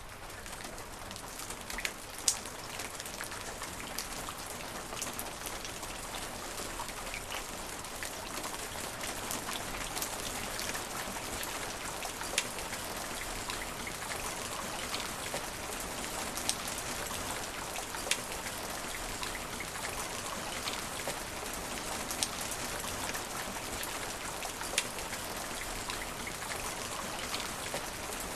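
Steady rain falling on asphalt: an even hiss of drops, with now and then a single louder drop striking close by.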